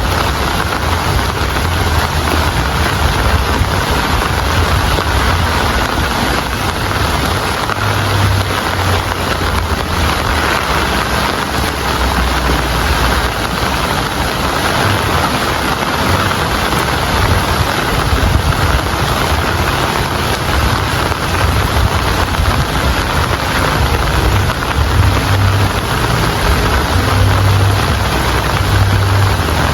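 Steady, heavy rainfall, an even dense hiss, with a low rumble underneath that swells and fades.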